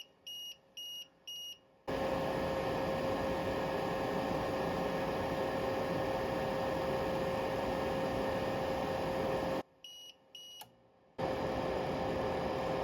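Tripp Lite Smart LCD 1500 UPS running its battery self-test: three short high beeps as the test starts, a steady hum from the unit and its cooling fan for about eight seconds, then two more beeps as the test ends, and the hum comes back.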